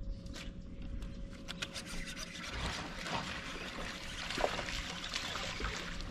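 Water splashing and trickling as a hooked largemouth bass is reeled in and thrashes at the surface, with many small crackling splashes and a faint steady hum underneath.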